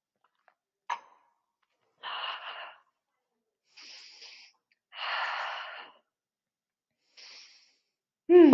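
A woman breathing audibly as she moves through yoga poses: four deep breaths in and out, the one about five seconds in the fullest. There is a small click about a second in, and a voiced sigh falling in pitch starts right at the end and is the loudest sound.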